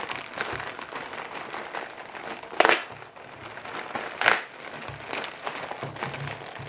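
Thin plastic packaging bag crinkling and rustling as it is handled and pulled open to get the hat out. Two sharper, louder crackles come about two and a half and four seconds in.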